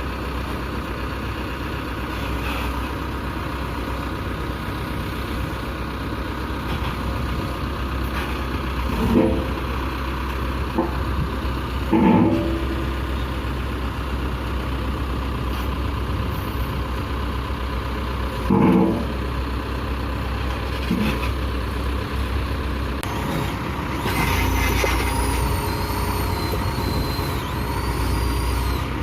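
Caterpillar 426F2 backhoe loader's diesel engine running steadily, with a few short, louder sounds about 9, 12 and 19 seconds in.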